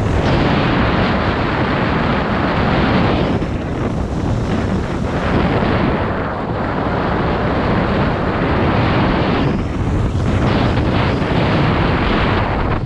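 Wind buffeting a GoPro action camera's microphone as the skier descends at speed, a loud steady rush that eases briefly a few times, with skis hissing over groomed snow underneath.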